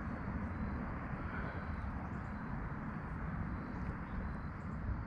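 Steady outdoor background noise, a low rumble with a hiss above it and no distinct events.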